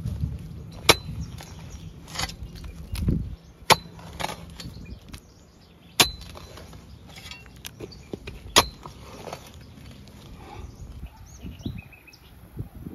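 Long-handled spade chopping into soil at the base of a small trunk to loosen it: sharp strikes a couple of seconds apart, each with a brief metallic ring, and softer scrapes between.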